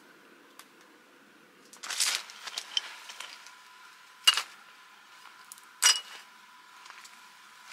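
Glass bottles being set down by hand on a groundsheet: a rustle about two seconds in, then two sharp glass clinks about a second and a half apart, each with a brief ring.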